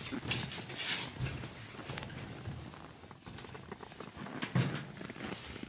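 Clumber spaniels' paws and footsteps crunching and pattering irregularly on packed snow as the dogs scramble about.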